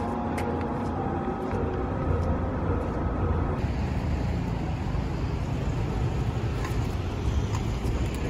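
Steady outdoor city noise: a low traffic rumble with no distinct events. Faint held tones in the first few seconds give way, about a third of the way in, to a deeper, steadier rumble.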